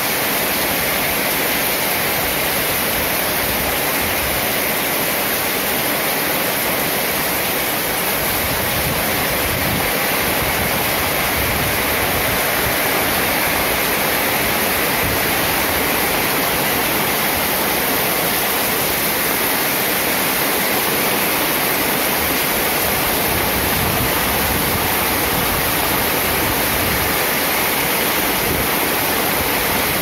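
Heavy rain falling as a steady, even hiss.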